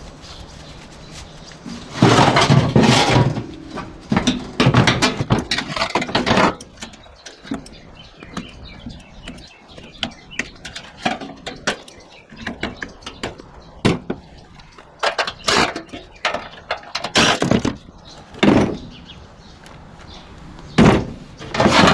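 Irregular metal clanks, bangs and scraping from scrap HVAC equipment being pulled apart by hand, with louder clattering runs early on and again later.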